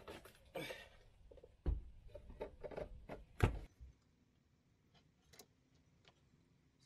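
Workshop handling noise: clatter and knocks of tools and wood being moved about on a bench, with two heavy thumps about a second and a half apart, then only faint clicks.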